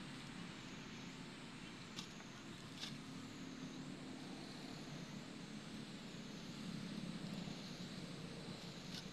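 Quiet outdoor ambience: a steady low rumble and hiss with a faint wavering high whine, broken by a few short sharp clicks as a macaque bites into the husk of a young coconut.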